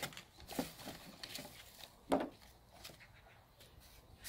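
Faint rustling and handling of sandpaper sheets and the cardboard box of a headlight restoration kit, with small scattered clicks and one short, louder low sound about two seconds in.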